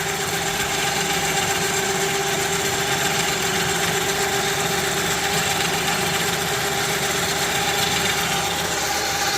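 3,000 lb electric winch motor running steadily under power, winding its cable back onto the drum: an even whine held at one pitch.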